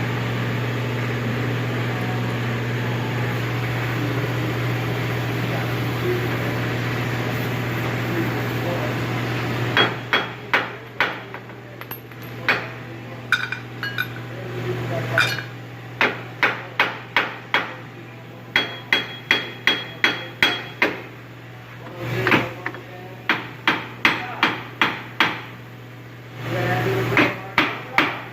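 A steady hum for the first ten seconds, then a hammer striking metal in quick runs of blows, about three to four a second, some with a brief metallic ring. The blows are knocking on a rusted, seized wheel hub assembly to free it from the vehicle.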